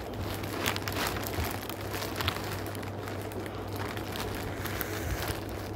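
Clear plastic packaging bag crinkling and rustling as it is handled and pulled open, with scattered small crackles, over a steady low hum.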